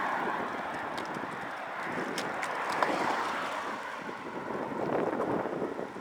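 Wind rushing over the microphone while riding a bicycle, swelling and fading, with a few faint ticks. No clicking comes from the newly replaced pedals.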